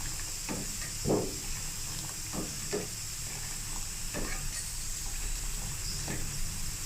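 Karak chai (spiced milk tea) simmering in a pot while it is beaten to aerate it: irregular scooping and splashing strokes about every second, over a steady hiss of the boiling tea.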